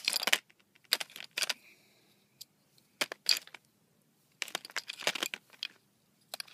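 Plastic cube pieces of a partly assembled 3x3 Rubik's cube clicking and clattering as they are handled, in several short clusters of sharp clicks separated by brief pauses.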